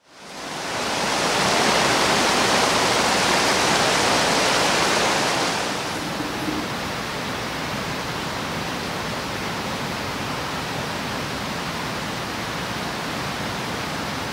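Rushing water of a small rocky stream tumbling over stones, fading in at the start. After about six seconds it drops to a quieter steady rush.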